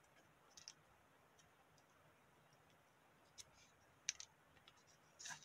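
Near silence with a few faint clicks and rustles of small rolled cones of colored paper being pressed and handled between fingertips. The loudest click comes about four seconds in.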